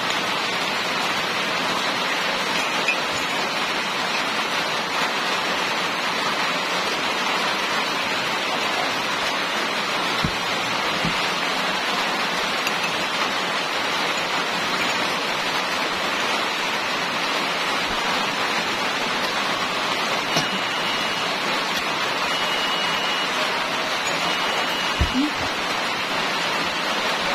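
Steady, even rushing noise with the character of heavy rain or falling water. In the last third, three short high beeps sound about two seconds apart, and there are a few soft knocks.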